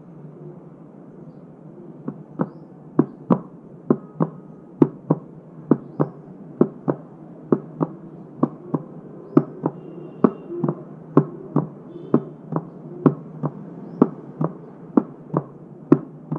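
Heart sounds: a regular 'lub-dub' of paired beats (S1 and S2), about one pair a second, over a steady low hiss. The beats begin about two seconds in.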